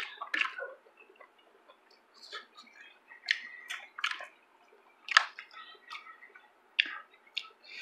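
Someone eating rice by hand: soft chewing and lip smacks with fingers working rice on a plate, heard as scattered short wet clicks and smacks, a few of them sharper.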